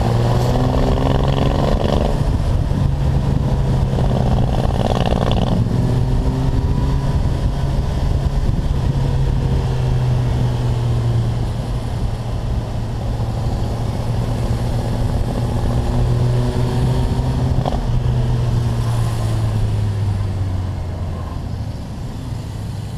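A motorcycle engine running under way as heard on board the bike, its revs rising and falling as it accelerates and eases, with road and wind noise. It drops off a little near the end.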